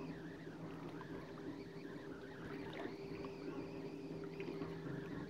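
A steady low motor hum, with a faint wavering chirping above it and a few small clicks of handling.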